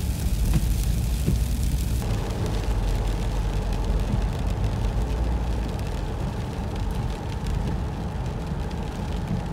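Road and engine noise heard inside a car driving on wet, slushy snow: a steady low rumble whose tone shifts abruptly about two seconds in.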